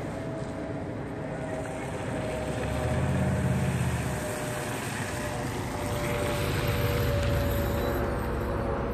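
Chevrolet Impala SS driving by: a low engine hum swells about three seconds in as the car approaches, and again near the end as it passes, over steady tyre and road noise.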